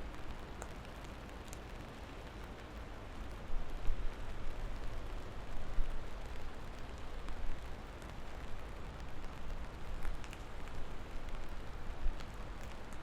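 Steady rain falling: an even hiss with a few scattered drop ticks and a low rumble underneath.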